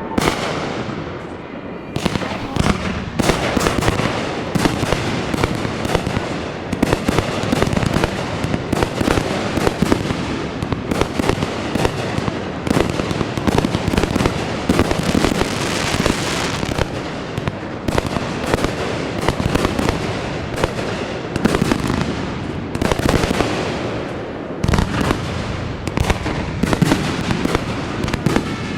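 Aerial fireworks in continuous finale-style barrage: shells launching and bursting many times a second, overlapping booms and crackle with no let-up.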